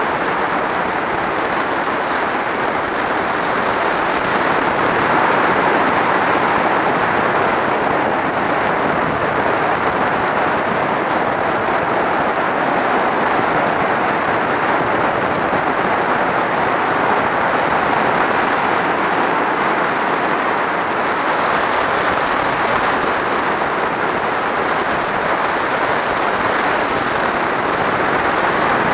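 Steady wind rush over a helmet-mounted camera on a sport motorcycle riding at highway speed, with the bike's running engine buried under it.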